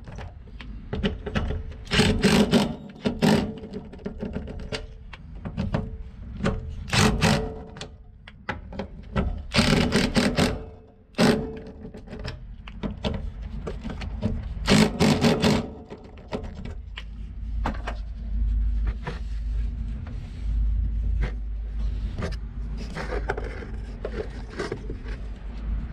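Socket driver running down the nuts on a fuel pump hanger plate: several short bursts of metallic clicking and rattling, a few seconds apart. A low steady rumble sets in during the last third.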